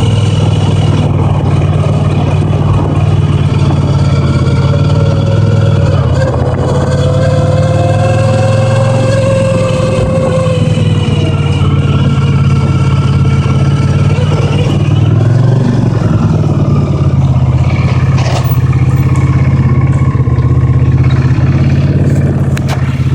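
Honda CX500 V-twin running while the bike is ridden, with a whine from a faulty speedometer gauge over it. The whine glides slowly up and down in pitch and is clearest a few seconds in.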